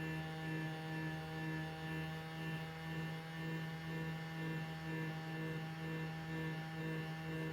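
A steady low electric hum with a stack of overtones, gently swelling and fading in loudness a little more than once a second.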